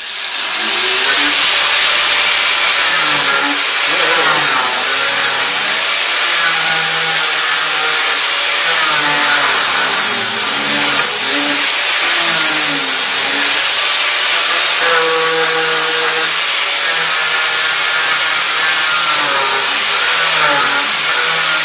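Angle grinder cutting into a steel radiator pipe to remove the old pipe union. It spins up at the start, then runs loudly and continuously, with its pitch wavering as the disc bites into the steel.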